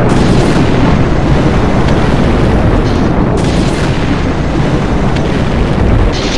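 Storm wind buffeting a phone microphone, a loud continuous low rumble with driven rain and spray hissing over it.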